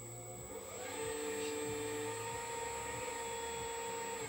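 Homemade hydraulic system of a Liebherr 954 RC excavator: the pump goes from a low hum to a louder steady whine about a second in, as the boom and grapple arm move under load. The whine cuts off near the end.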